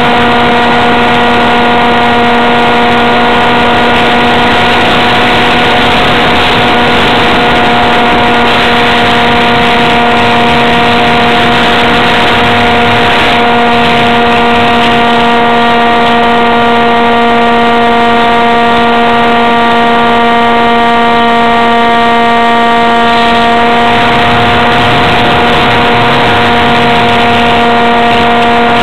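Electric motor and pusher propeller of a ParkZone F-27B Stryker RC flying wing in flight, picked up by a camera taped to the airframe: a loud, steady whine at one pitch over a hiss.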